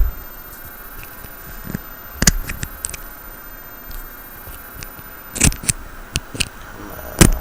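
Sharp metallic clicks and taps of a small tool working at the C-clip on a Master Lock Pro Series 6850 padlock, the clip not yet coming off. The clicks come irregularly, a few loud ones in the second half and near the end.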